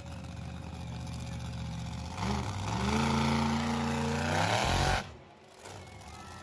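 Monster truck engine revving hard from about two seconds in, its pitch climbing near the end before the sound drops away suddenly, as the truck throttles up into a wheelie.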